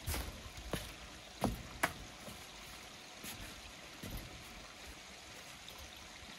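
A few knocks and clicks in the first two seconds as the camera is handled and set down, then a faint steady hiss.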